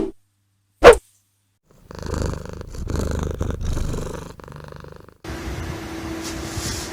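A cat purring in a few slow swells, after a single short sharp sound near the start. About five seconds in it gives way to a steady low hum.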